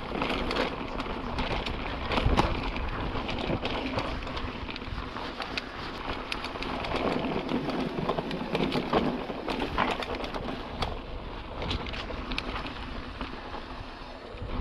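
Mountain bike rolling over a rough trail: a steady noise of tyres and wind, broken by many sharp clicks and rattles from the bike.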